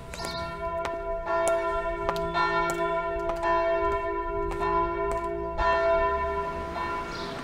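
Church bells ringing, struck again and again at an uneven pace over their steady ringing tones, cut off near the end.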